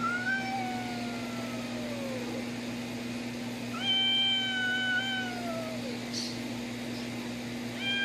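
Cat yowling in a standoff with another cat: two long drawn-out yowls, each held and then sliding down in pitch, with a third starting at the very end. A steady low hum runs underneath.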